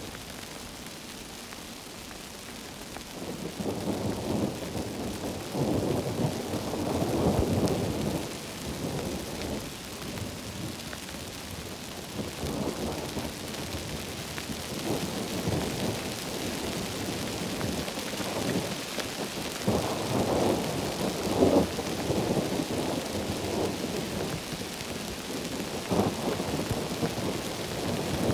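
Heavy rain falling steadily, with rolling thunder that swells and fades, loudest twice: a few seconds in and again about two-thirds of the way through.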